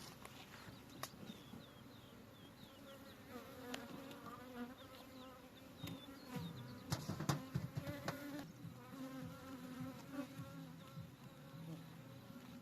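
Honeybees buzzing around open hives: several wing tones overlapping and wavering in pitch. A few knocks and thumps a little past halfway are the loudest part.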